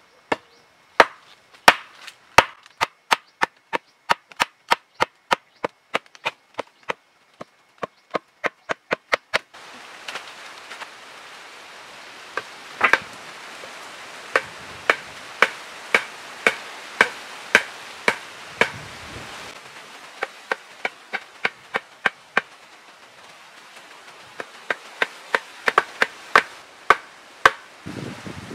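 Wood being chopped with a blade: sharp strikes about two a second, in several runs with short pauses between them.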